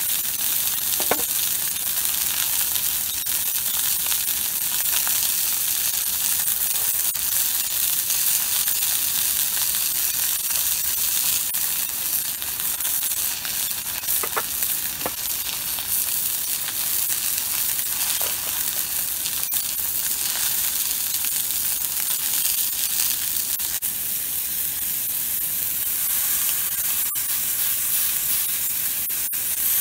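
Steaks searing in a cast iron skillet, a steady high sizzle.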